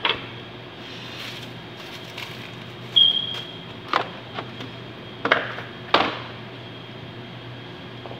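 Steady hum of kitchen ventilation, with about five knocks and clatters from a melon and utensils being handled on a steel counter. One of them, about three seconds in, has a short metallic ring.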